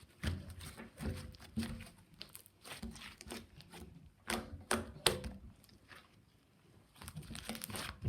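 Slime being squished and stretched by hand, giving irregular wet clicks, crackles and pops.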